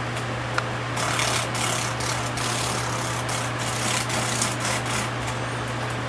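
Giant cicada giving a rough, broken buzzing distress call while caught by a scorpion, from about a second in to near the end, over a steady low hum.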